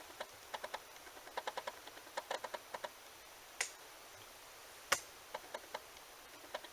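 A run of light, sharp clicks and taps in quick little clusters of two to four, with two louder clicks about three and a half and five seconds in.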